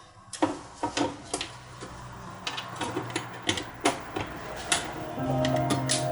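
Irregular clicks and taps of a screwdriver working security screws back into the lid of a Regal Safe RS50 alarm panel. A steady low note comes in about five seconds in.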